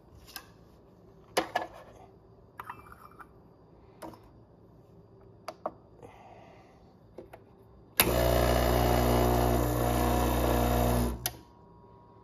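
Gaggia Classic Pro espresso machine's vibratory pump buzzing steadily for about three seconds with the portafilter locked in, then cutting off with a click. Before it, a few light clicks and knocks as a glass cup is set on the scale beneath the portafilter.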